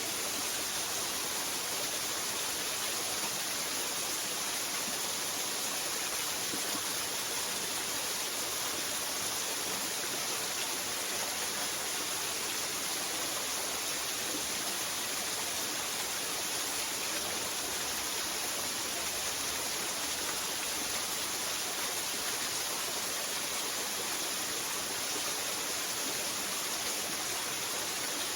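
Waterfall, a steady even rush of falling water that does not change.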